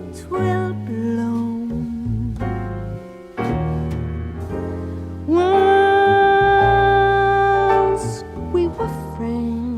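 Slow jazz ballad music: piano chords under a melody line. About five seconds in, the melody glides up into a long held note, and near the end it wavers with vibrato.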